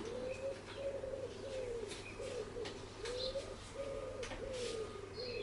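Pigeon cooing: a steady run of soft, low coos, about two a second, with a few faint clicks.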